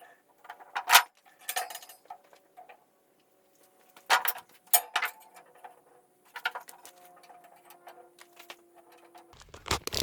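Lengths of steel square tubing being set down and knocked into place against each other: several sharp metal clanks, the loudest about a second in, some leaving a faint lingering ring.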